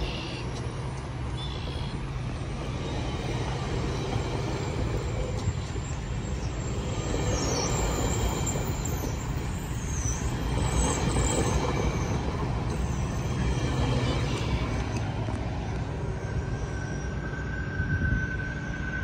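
A train rolling by with a steady rumble of wheels on rail, and a high-pitched wheel squeal for a few seconds in the middle.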